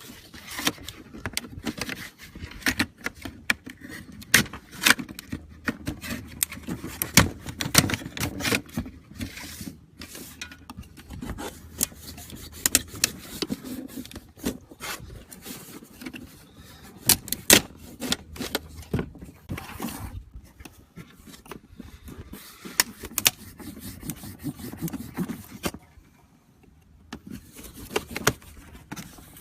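Plastic welds cracking and snapping as a spatula pries the backing plate off a stock hood vent, with the tool scraping against the plastic. Many sharp, irregular cracks and clicks, with a brief lull near the end.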